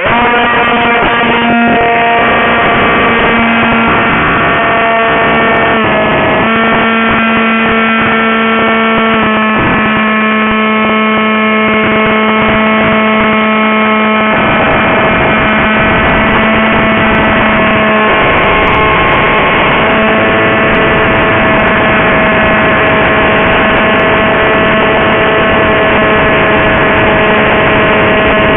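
Electric motor and propeller of a Goblin RC flying wing, heard close up through the cheap onboard camera's microphone: a loud, steady buzzing whine that starts abruptly and shifts pitch a little every few seconds with the throttle.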